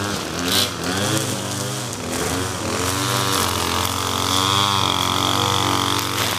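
Echo SRM-2620 string trimmer's two-stroke engine running, its pitch rising and falling as the throttle is worked while the spinning line cuts through grass and weeds.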